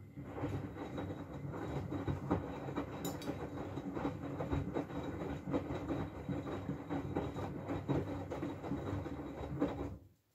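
Miele W433S front-loading washing machine turning its drum during a rinse: a steady motor hum with wet laundry and water sloshing and knocking inside, starting abruptly and stopping after about ten seconds.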